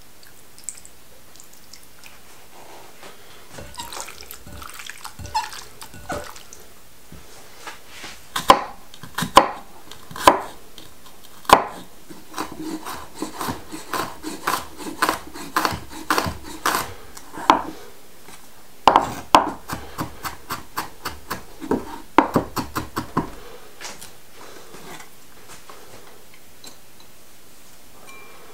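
Chef's knife mincing garlic on a wooden cutting board: a few single heavy knocks, then runs of quick chopping strokes, which stop a few seconds before the end. Soft handling and rustling sounds come before the chopping.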